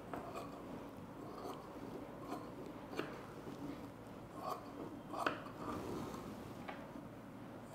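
Tailoring scissors cutting through a doubled layer of lining cloth: a run of soft, irregular snips, the sharpest about three and five seconds in.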